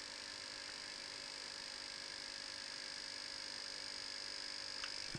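Steady electrical hum with a thin, high-pitched whine held on one note, and a small tick near the end.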